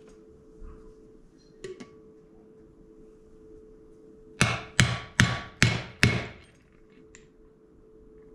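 Five hammer blows about 0.4 s apart on a metal seal driver, driving a wheel grease seal into a disc brake rotor's hub. Each strike has a short metallic ring.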